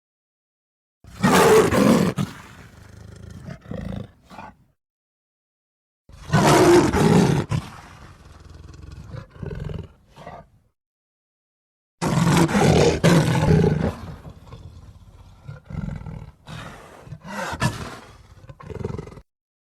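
Sabre-toothed cat (Smilodon) roar sound effects, a designed big-cat roar: three separate loud roars about five seconds apart, each a second or two long and trailing off into quieter calls, with dead silence between them. The last is followed by several shorter calls.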